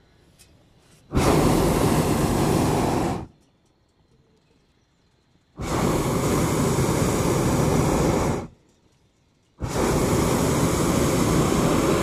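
Hot-air balloon's propane burner firing in three blasts of two to three seconds each, starting about a second in, with short quiet gaps between.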